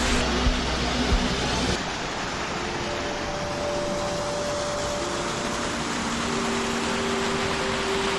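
Steady rushing of a forest stream, with low buffets of wind on the microphone during the first couple of seconds that stop abruptly.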